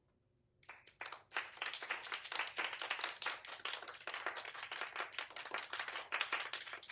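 Audience applause that starts less than a second in after a silence, quickly building into dense, steady clapping.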